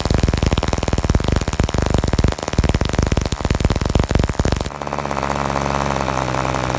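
BollAero 18, a 1.8 cc home-built model diesel (compression ignition) engine, running at speed with its propeller spinning while the compression screw is adjusted. Its note is rough and crackling at first, then about two-thirds of the way through it changes suddenly to a smooth, steady, even tone.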